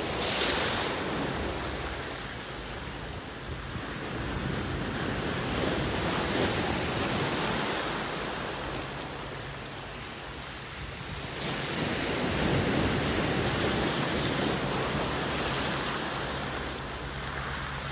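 Sea surf breaking over concrete wave-breaker blocks and washing up a pebble beach. The rush of water swells and eases several times as successive waves come in.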